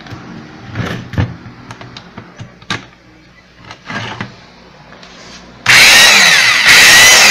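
Corded electric impact wrench: a few knocks and clicks as it is handled, then its motor starts suddenly and runs loud with no load for about a second, stops briefly and starts again. It is running again after loose wire connections at its switch were repaired.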